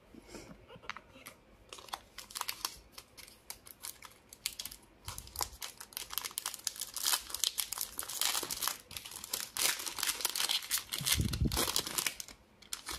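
Foil wrapper of a Bowman baseball card pack crinkling and tearing as it is opened by hand: scattered crackles at first that thicken into steady crinkling, with a low thump about eleven seconds in.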